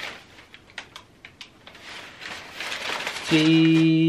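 Crumpled packing paper crinkling and rustling in the hands, many small crackles. About three seconds in, a man's voice holds one steady note for about a second.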